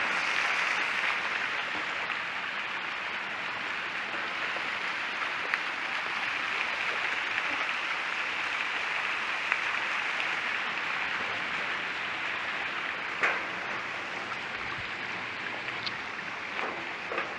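Mountain stream running over rocks: a steady rushing hiss, with a few sharp clicks, the loudest about 13 seconds in.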